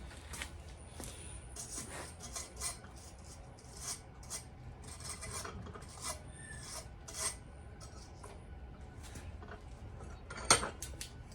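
Irregular rasping, scraping strokes of a hand tool worked against steel, with a sharp metallic knock near the end.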